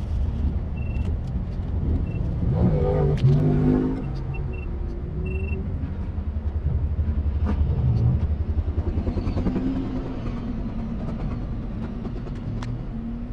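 Car engine idling with a low, pulsing rumble, heard from inside a car's cabin, briefly louder about three seconds in.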